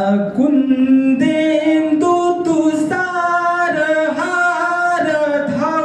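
A man singing into a microphone, holding long notes and moving from one pitch to the next.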